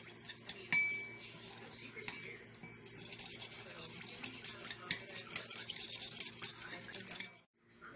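A spoon clinks once against a bowl with a short ring, about a second in. From about three seconds in, it stirs the dressing ingredients together in the bowl with a quick run of small scrapes and clicks. The stirring stops abruptly near the end.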